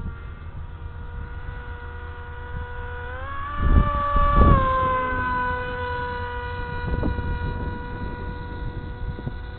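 RC Bixler's electric motor and propeller droning in flight, a steady pitched whine with many overtones. Its pitch rises about three seconds in, holds briefly and eases back down. The pilot hears it as rough and takes it for something out of line in the motor or the new prop. Gusts of wind buffet the microphone as the pitch rises, the loudest moment.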